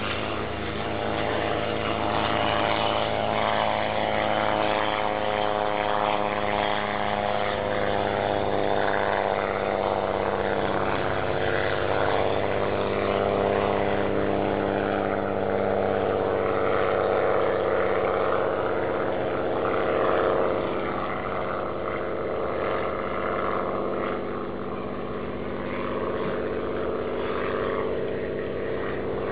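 Single-engine aerobatic propeller plane flying overhead, its piston engine and propeller running steadily with a slightly wavering pitch.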